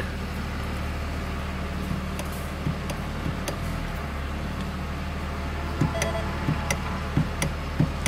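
Cummins diesel idling, a steady low hum heard from inside the cab, with a few light clicks near the end as the shift paddles are tapped.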